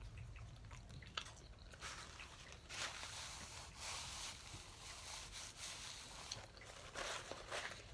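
Faint eating sounds: someone chewing and working a mouthful of sauced chicken wing, in soft, irregular bouts.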